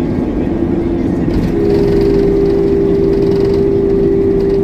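Airbus A321's IAE V2533-A5 turbofan engines at takeoff thrust just after rotation, heard inside the cabin as a steady drone with a humming tone. About a second and a half in, a second, slightly higher tone and a hiss join and the noise grows a little louder.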